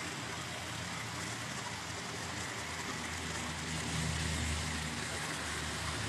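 Steady outdoor background hiss with a faint low hum that swells slightly a few seconds in.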